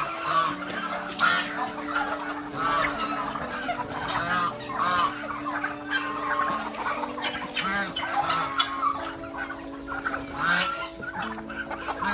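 Chickens clucking, many short calls one after another, over a steady low hum.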